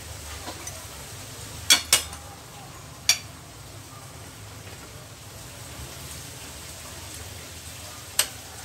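Steel bar stock and the metal parts of an angle grinder stand's vise clanking together as the workpiece is positioned and clamped. Two sharp knocks come close together, a third follows about a second later, and a single one comes near the end.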